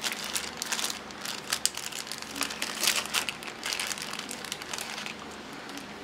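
Plastic packaging and bubble wrap crinkling and rustling in the hands as a small electronic module is unwrapped. The crinkling is irregular, in quick bursts, and dies away just before the end.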